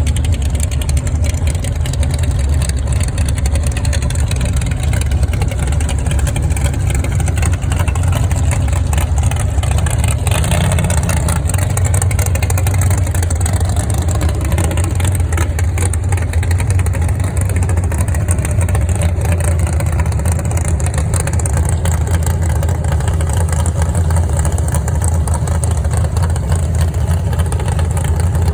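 A vehicle engine running steadily with a deep low rumble; its pitch rises and falls a little about halfway through.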